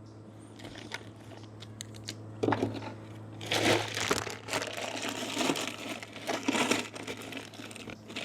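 Bags and food packaging crinkling and rustling as groceries are handled, faint and scattered at first, then louder and continuous from about three and a half seconds in. A low steady hum runs underneath.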